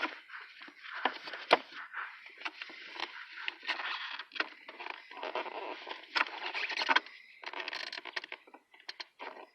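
Hands working a brake light switch and its wiring loose under a truck's dashboard: irregular clicks, rustling and scrapes of plastic and metal parts, with one sharp click about a second and a half in.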